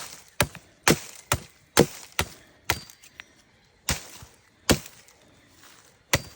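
A blade chopping into a coconut's husk, about ten sharp strikes at an uneven pace with longer gaps near the end, shaving the husk away to open a hole.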